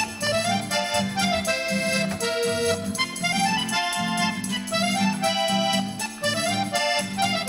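Background music: the instrumental break of a Chilean folk song, a melody over a steady beat.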